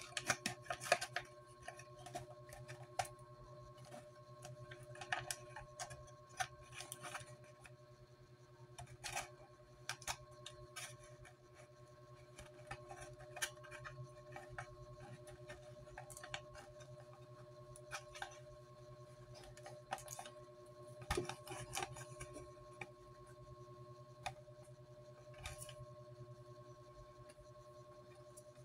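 Thin clear plastic bottle being handled, its plastic giving scattered sharp clicks and crackles at an uneven pace, over a faint steady low hum.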